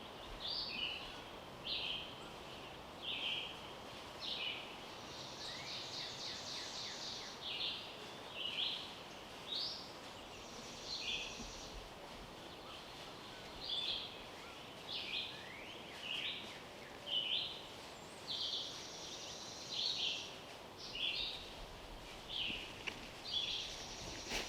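Small songbirds singing: a steady run of short, high chirping notes about one a second, with a few higher, faster trills mixed in.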